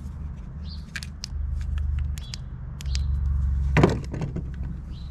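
Hand tools being handled and set down: scattered light clicks and clinks, with one louder knock near the end. Under them runs a low rumble that swells twice.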